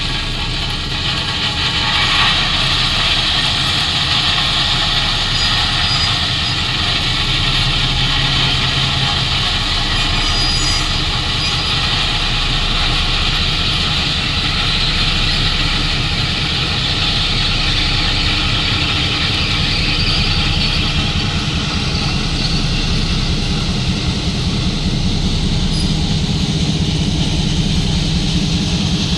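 Diesel locomotive running steadily with a work train, a low engine hum under a steady hiss that holds through the whole stretch.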